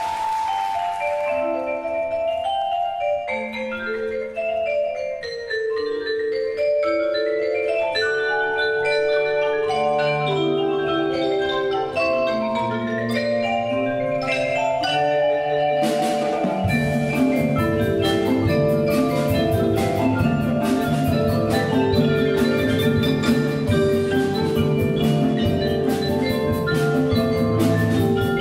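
Percussion ensemble playing: marimbas and vibraphones carry a melody in separate struck notes, and about 16 seconds in the rest of the percussion section joins with a steady beat, making the sound fuller and lower.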